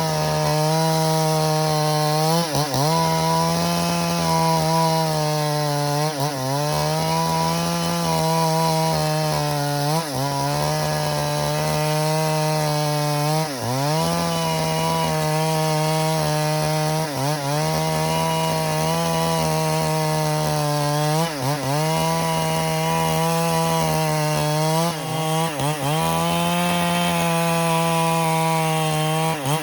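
Stihl MS382 two-stroke chainsaw running near full throttle as it rips lengthwise through a dead log. Its pitch dips briefly and recovers about every three to four seconds as the chain bogs into the wood.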